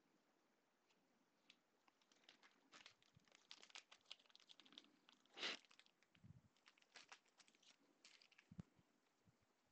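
Faint crinkling and rustling of trading cards and their foil pack wrappers being handled, with light clicks, loudest about five and a half seconds in.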